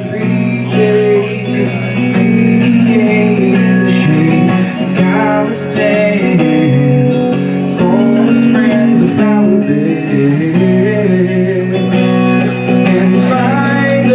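A live band playing a song led by guitar, with a wavering melody line over sustained chords.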